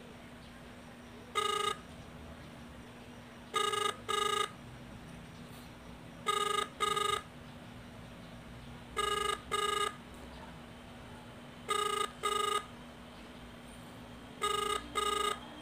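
Ringback tone of an outgoing call heard through a mobile phone's loudspeaker, meaning the other phone is ringing and not yet answered. One beep sounds about a second and a half in, then five double beeps come about every three seconds.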